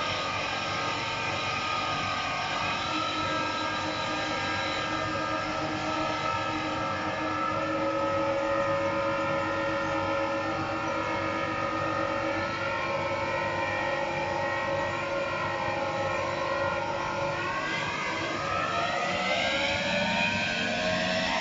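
Matura Ökoline 7510 washing machine's motor whining as it turns the drum. The pitch holds nearly steady, then rises smoothly over the last few seconds as the drum speeds up into the spin.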